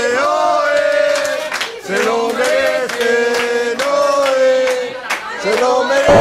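A group of voices singing together in unison, holding long notes in a chant-like tune.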